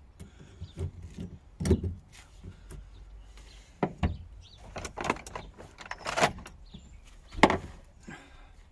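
Irregular clunks, clicks and short scrapes of hand tools and metal parts being worked on while fuel-line clips are taken off a car's fuel pump, with a longer scrape about six seconds in and sharp knocks near two, four and seven and a half seconds.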